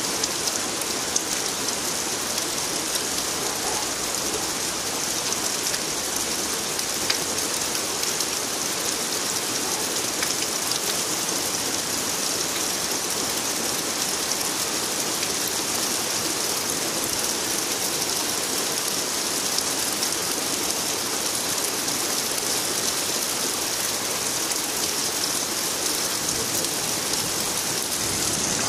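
Heavy, steady rain falling during a thunderstorm, with a few scattered taps of single drops.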